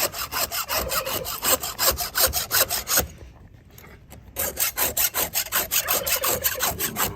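Chainsaw chain being sharpened with a hand file: quick, even rasping strokes of metal on metal, about four or five a second, stopping briefly around the middle and then resuming.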